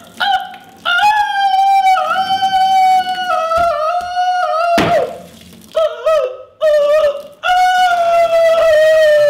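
A high voice holding long notes in several phrases, with short breaks between them. There is a brief thump about halfway through.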